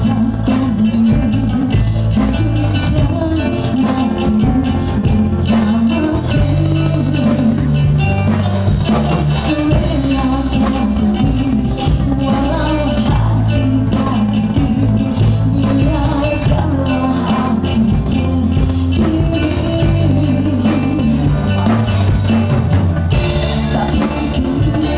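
A live band playing an upbeat rock song through a PA during a sound check, with drum kit, bass and singing.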